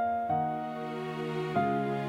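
Slow, tender instrumental music of sustained piano chords, with a new chord struck about a third of a second in and another about a second and a half in.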